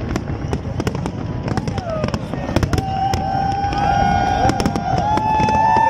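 Aerial fireworks bursting in a rapid, continuous run of bangs and crackles. From about halfway a long held note sounds over them, pitched higher near the end.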